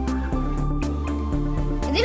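Background music with a steady electronic beat and held bass notes.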